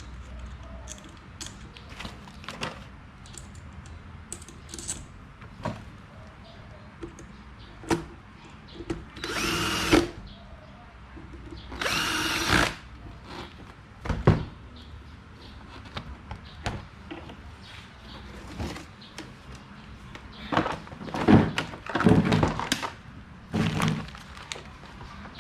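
A power drill or electric screwdriver is run twice in short bursts of about a second each, around the middle. Clicks and knocks of parts and tools being handled come throughout, thickest near the end.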